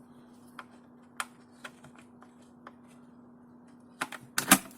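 Light, scattered clicks and taps of a chainsaw's plastic top cover and parts being handled and fitted, with a quick run of louder knocks near the end.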